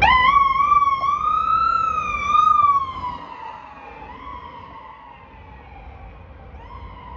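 Ambulance siren worked by hand in manual wind-up mode: a wail that comes on abruptly, wavers near its top for a couple of seconds, then winds down slowly. It is briefly pushed back up twice, about four seconds in and near the end.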